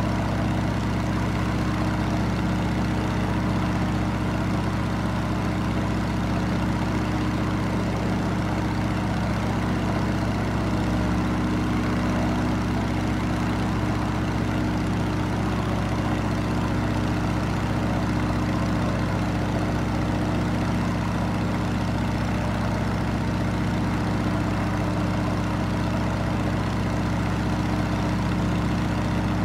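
Light aircraft's piston engine and propeller running at a steady, unchanging drone, heard from inside the cabin.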